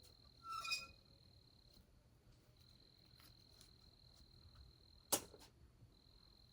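Faint, steady, high-pitched insect trill with short breaks. A brief squeak comes about half a second in, and a single sharp click about five seconds in.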